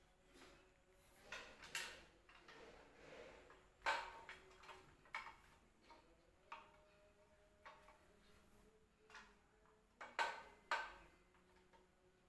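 Faint, irregular light clicks and knocks, about a dozen spread unevenly, with the loudest single knock about four seconds in and a cluster of three near the end.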